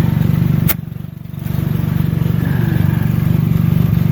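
Air compressor running steadily with a fast, even pulsing chug while a truck tire is inflated. A sharp click comes just under a second in, and the running sound dips for about half a second before coming back up.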